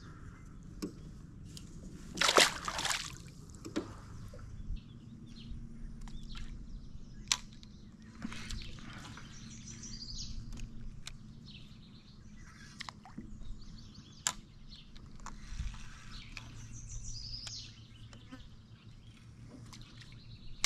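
A splash about two seconds in as a smallmouth bass is released back into the water, followed by quiet water sounds with a few scattered sharp clicks and knocks.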